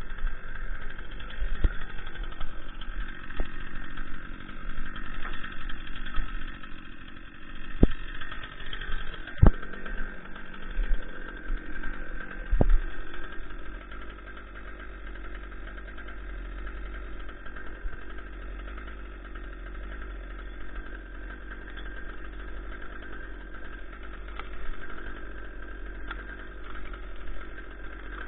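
An engine idling steadily throughout. Several sharp cracks and knocks come in the first half, then only the engine is heard.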